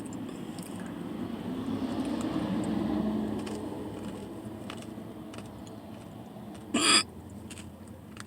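A woman's single loud hiccup about seven seconds in. Before it, a low rumble swells and fades over the first few seconds.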